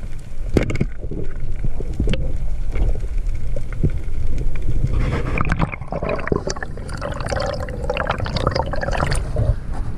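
Water gurgling and sloshing with scattered clicks over a low rumble. From about five seconds in, a dense patch of bubbling and crackling lasts some four seconds.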